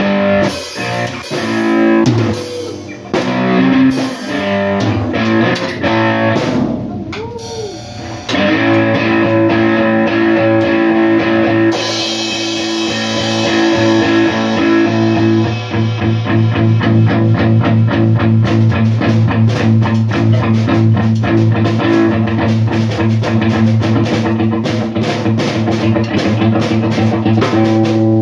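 Live rock band with electric guitar and a drum kit. Choppy stop-start figures and a sliding note give way about eight seconds in to sustained guitar chords, with fast, dense drumming and cymbals filling out the sound from around the middle on.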